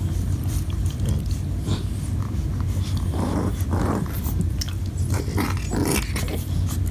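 A French bulldog and a puppy play-fighting: short, irregular growls and mouthing sounds as they nip at each other, over a steady low hum.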